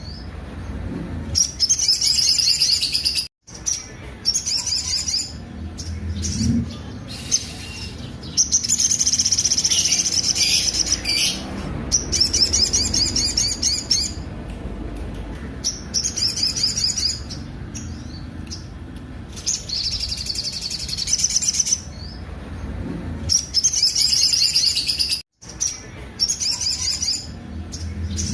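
Little spiderhunter (sogok ontong) singing a harsh, rough song of rapid, evenly repeated high chips. It comes in bursts of a few seconds with short pauses between them, and the sound cuts out completely for an instant twice.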